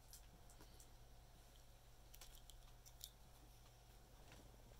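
Faint, irregular ticking clicks from a cat's tongue licking packing tape on a cardboard box.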